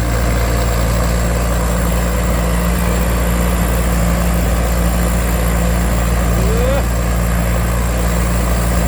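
Rice combine harvester running steadily while harvesting: a deep, even engine drone with a thin high whine above it.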